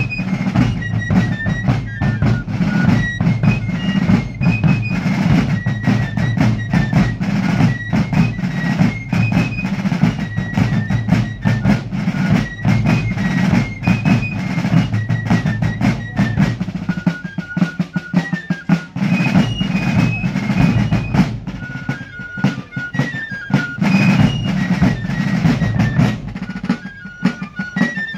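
Fife and drum corps playing a march: fifes carry a high melody over rattling snare drums and bass drum beats. The bass drums drop out briefly a little past the middle, then come back in.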